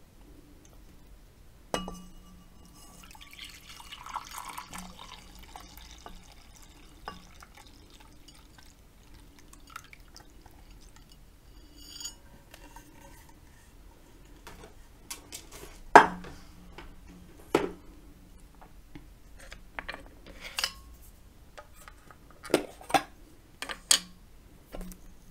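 Milk poured from a stainless steel pot into a bowl, a soft splashing trickle for a few seconds after a first clink. Later come scattered sharp knocks and clinks of tableware and a tin being handled, the loudest about two-thirds of the way in.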